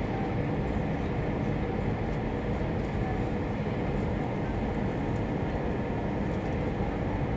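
Steady cabin noise inside an Airbus A320 on approach: engine and airflow rumble, heaviest in the low end, holding an even level throughout.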